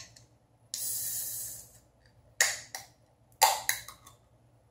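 An aluminium drink can being opened: a sudden hiss of escaping carbonation about a second in, lasting just under a second. A few short, sharp sounds follow over the next couple of seconds.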